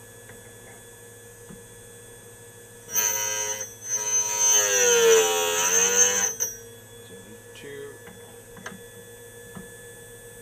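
Cuttermasters CMS 03C end mill grinder running with a steady hum. Its grinding wheel bites into a 4-flute end mill for a brief touch about 3 s in, then for a longer cut of about two and a half seconds, gashing the flutes. During the cut the ringing pitch dips under load and recovers.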